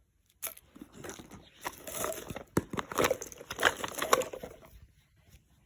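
Crinkling and clicking handling noise: a quick run of small clicks and crunches that starts about half a second in and dies away near the end, with a few sharper snaps in the middle.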